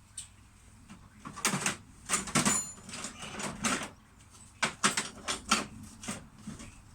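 Irregular metallic clinks and scrapes of an Allen key and spanner working on the bolt inside a motorcycle front fork, with a brief bright metallic ring about two and a half seconds in.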